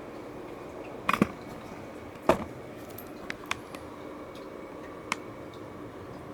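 Scattered clicks and knocks from a new laptop being handled: a quick cluster of clicks about a second in, the loudest knock just after two seconds, then a few lighter ticks, over a steady low hum.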